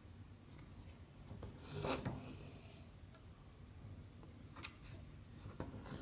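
A brief swish of hand and thread rubbing against cross-stitch fabric about two seconds in, followed by a couple of faint taps near the end.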